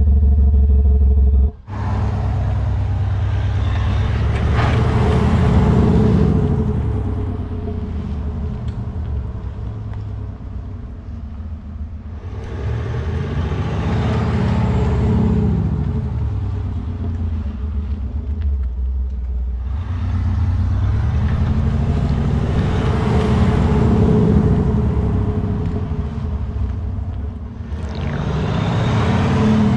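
Land Rover Defender 130 diesel with a Quicksilver switchable exhaust, its sound generator playing a simulated V8 note as the vehicle drives and accelerates past several times. The engine note rises and falls in pitch three or four times, growing louder and fading with each pass.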